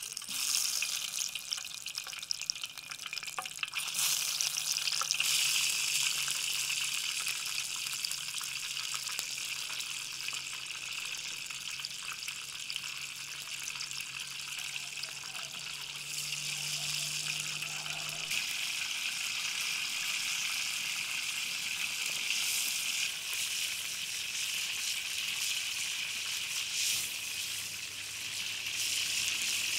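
Tomato halves frying in hot oil in a wide pan: a steady, dense sizzle that starts suddenly as the first half goes into the oil and grows louder a few seconds later as more halves go in.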